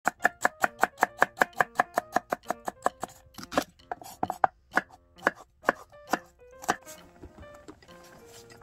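Kitchen knife slicing carrot and onion on a wooden cutting board. The first three seconds are quick, even knocks about five a second, then slower, irregular cuts that stop about seven seconds in.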